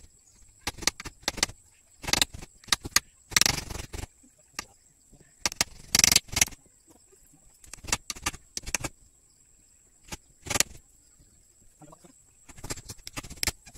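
Irregular knocks, clicks and rustling clatter of wooden sticks being handled close by during work on a simple stick-framed hut, with a few longer, louder rustling bursts among short sharp knocks.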